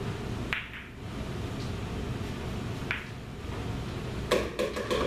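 Pool balls clicking against each other and off the cushions as they roll out after the break: one click about half a second in, another near three seconds, and a quick cluster of clicks near the end.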